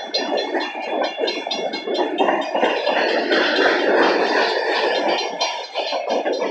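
Freight cars rolling past on steel wheels with a steady rumble and rattle. A railroad grade-crossing bell rings in a rapid, even rhythm over it.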